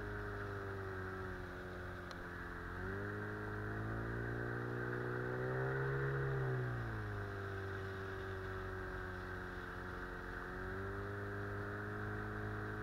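Outboard motor driving an inflatable boat, running steadily; its revs rise for a few seconds in the middle and ease back down, with a smaller rise near the end. The motor is new and still being run in.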